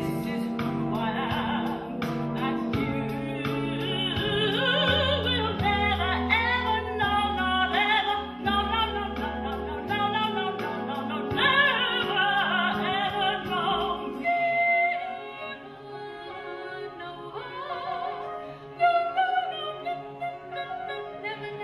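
Classical music: a voice singing in operatic style with vibrato over string accompaniment, growing quieter and sparser about two-thirds of the way through.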